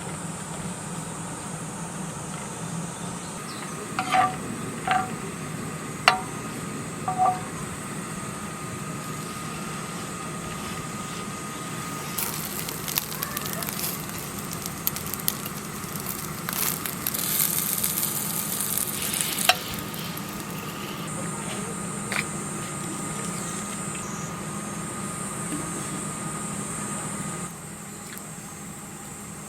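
Food sizzling in a pan, with four light clinks about four to seven seconds in and a louder, denser stretch of sizzling with crackles in the middle, over a steady machine hum.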